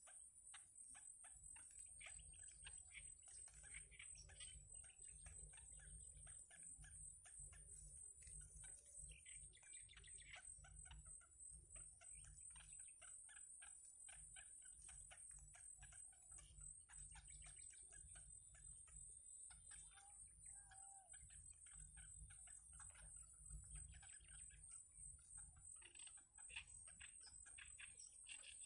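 Faint, rapid ticking calls of bittern chicks begging at the nest, with a steady high-pitched buzz behind them.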